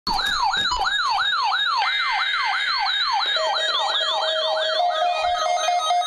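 NOAA weather alert radios, a Midland among them, sounding their alarms together for a Required Weekly Test. A fast, repeating rising whoop about three times a second is joined by a steady alert tone about two seconds in and by pulsing beeps from about three seconds in.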